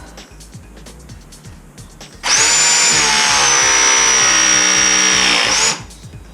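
Battery-powered press tool running one press cycle on a Viega MegaPress gas fitting: a motor whine starts suddenly about two seconds in, sags slightly in pitch as the jaws close under load, lifts briefly and cuts off about three and a half seconds later. Background music with a steady beat runs underneath.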